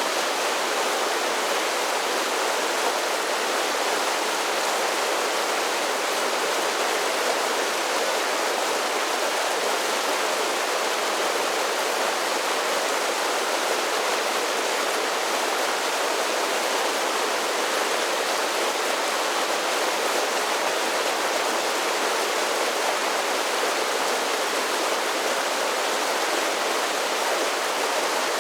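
Mountain creek tumbling over a series of small falls, a steady rushing of water with no changes.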